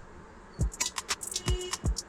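Background music: a drum beat comes in about half a second in.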